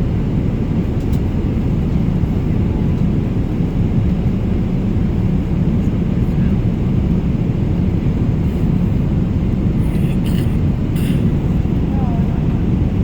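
Steady low rumble of a moving vehicle, its engine and travel noise running evenly, with a few faint brief sounds near the end.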